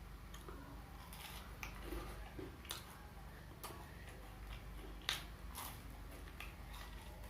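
Close-up mouth sounds of someone eating gorengan, fried Indonesian snacks: chewing with irregular short clicks. The loudest click comes about five seconds in.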